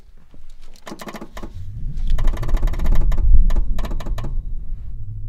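Old Toyota LandCruiser Troopy diesel engine turning over and starting about a second in after its glow plugs were heated, then running at a low idle. Several sharp clicks are heard before and after it catches.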